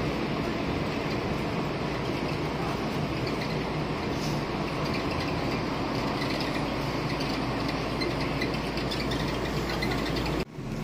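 Scania N230UD double-decker bus heard from inside the passenger saloon: its diesel engine drones steadily under road noise, with a constant light rattling from the interior fittings. The low drone grows stronger about halfway through, and the sound breaks off briefly near the end.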